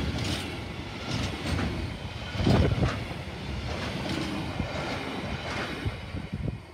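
The last container flat wagons of a freight train rolling past, their wheels rumbling on the rails with regular clacks. It is loudest about two and a half seconds in, then fades away near the end as the tail of the train passes.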